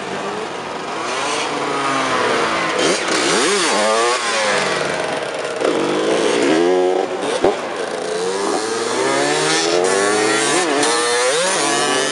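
Tuned two-stroke moped engines revving hard, their pitch sweeping up and down over and over, with several bikes overlapping. A single sharp crack about seven and a half seconds in.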